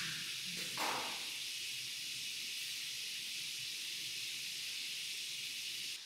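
A steady high hiss, with a brief soft rustle about a second in.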